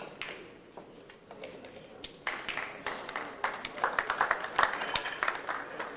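A pool cue strikes the cue ball with a sharp click, followed by a faint knock of balls. About two seconds in, the audience breaks into applause: many quick claps that carry on to the end.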